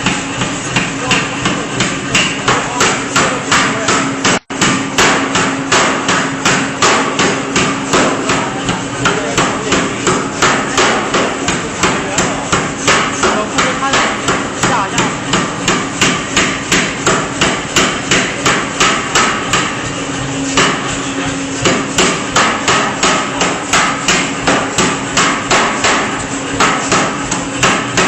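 C41-150 pneumatic forging hammer (air hammer) striking steadily at about two blows a second over a steady hum. The blows stop for about a second roughly two-thirds of the way through, then resume.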